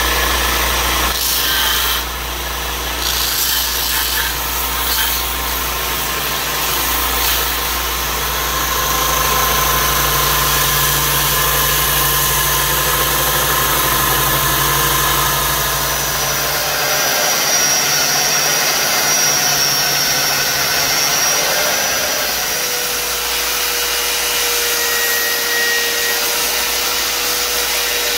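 Belt grinder running with wooden knife-handle scales pressed against its abrasive belt: a steady, loud sanding rush over the motor's low hum. About two-thirds of the way through, the low hum drops away and a sanding disc on a motor spindle takes over, adding a steady whine.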